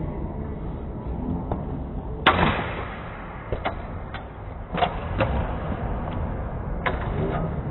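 Steel longsword blades clashing in a fencing exchange: one sharp strike a little over two seconds in, the loudest, then several lighter clacks over the next few seconds.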